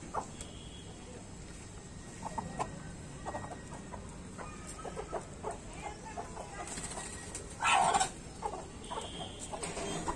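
Desi hens clucking softly and intermittently while pecking at rice on a concrete yard, with one louder, short burst about eight seconds in.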